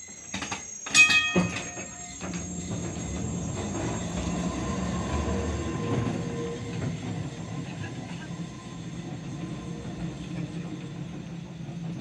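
Historic 1928 MAN tram motor car running past on its track: a sharp metallic clang about a second in, then a steady electric-motor hum and wheel rumble that swells as it passes and fades as it moves away.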